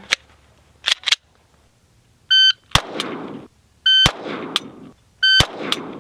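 Shot-timer beeps, each followed within a fraction of a second by a single pistol shot that echoes briefly, three times in all. A fainter click comes a moment after each shot, fitting a second trigger pull on the now-empty chamber in a one-shot return drill. Two light clicks come about a second in, before the first beep.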